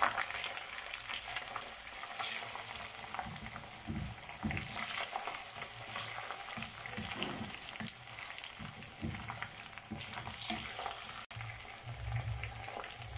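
Chopped onion, ginger-garlic paste and freshly added tomato sizzling in hot oil in a wok, stirred with a spoon that scrapes and knocks against the pan now and then.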